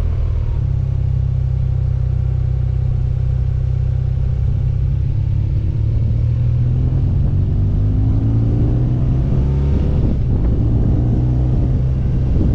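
BMW motorcycle's engine running under way, with steady road and wind rumble. The engine note falls in the first second, then climbs from about six seconds in as the bike picks up speed.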